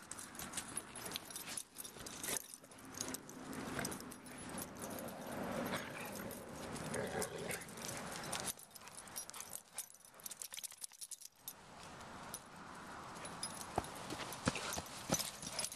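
Dogs digging and scuffling in dry dirt and dead leaves: a dense, irregular crackle of short scratches and clicks, with a quieter stretch a little past the middle.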